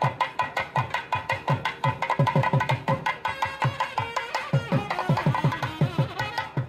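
Thavil drum struck in quick, even strokes by fingers fitted with hard caps, each deep stroke dropping in pitch, over held nadaswaram reed tones that carry a shifting melody about halfway through.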